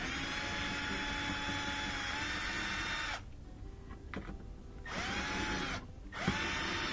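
Power drill-driver whining as it backs long Phillips head screws out of a wooden dishwasher door panel. It runs once for about three seconds, then gives two short bursts near the end.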